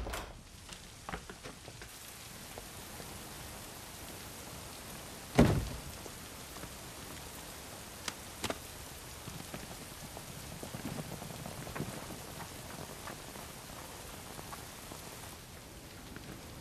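Steady rain falling, setting in abruptly at the start. One heavy thump about five seconds in, the loudest sound, and two sharp knocks close together about three seconds later.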